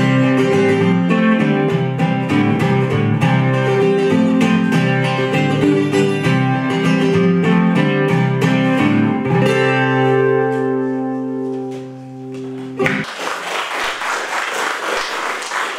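Acoustic guitar played solo, picked notes closing out a song, ending on a chord that is left to ring for about three seconds. About three seconds before the end, an audience starts applauding.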